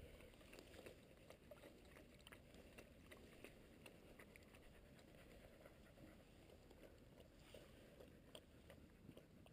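Near silence, with only faint scattered small ticks and rustles.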